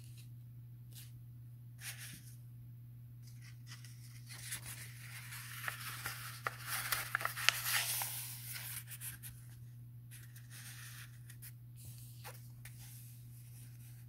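Pages of a paperback book being turned and pressed flat by hand: paper rustling and soft crinkling, busiest in the middle few seconds, over a low steady hum.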